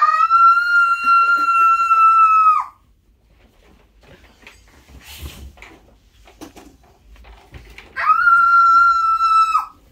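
A young boy imitating a wolf howl: two long, high howls about five seconds apart, each sliding up at the start, holding one steady pitch and dropping off at the end.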